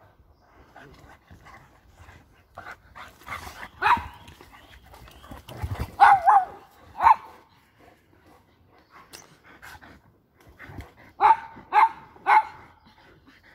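Two dogs play-fighting, a boxer and a fawn dog, with short sharp barks: one about four seconds in, three close together around six to seven seconds, and a quick run of three near the end, with scuffling between.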